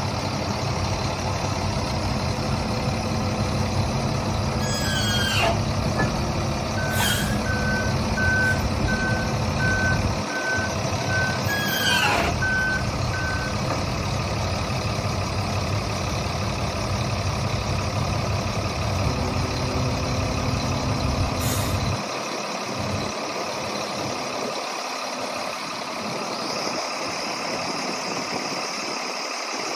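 Volvo A25D articulated dump truck's diesel engine running steadily while the hydraulics raise the dump body. A warning alarm beeps steadily for about six seconds early on, with a couple of brief falling whistles around it. The engine's low rumble drops off sharply about two-thirds of the way through.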